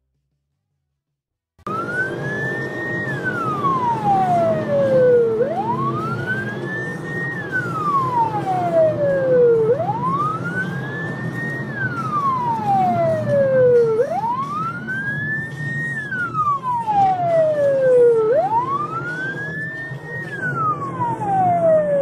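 Police car siren wailing, each cycle a quick rise and then a long falling glide, repeating about every four seconds over steady road noise. It cuts in about a second and a half in.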